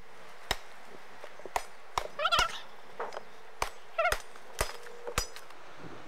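A machete chopping at a thin sapling: about nine sharp blows, roughly one every half second to a second. A few short high-pitched cries come between the blows.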